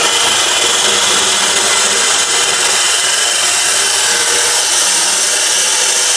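Yamasu YMS-355A 2800 W cut-off saw with a 355 mm abrasive disc grinding through a metal bar. The cut gives a loud, steady, high-pitched screech of the disc on metal.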